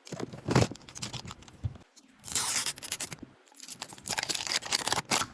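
Plastic packaging of a Mini Brands capsule being torn open, in bursts of crackling with many small clicks.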